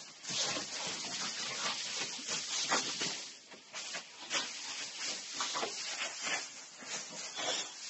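Loose wood shavings rustling and scattering in irregular scrapes as a boxer dog digs into them and tosses them about.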